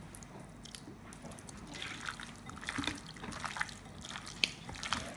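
A bare hand squeezing and kneading raw chicken pieces in a marinade of soy sauce and seasonings in a bowl, giving irregular wet squelches and small sticky clicks.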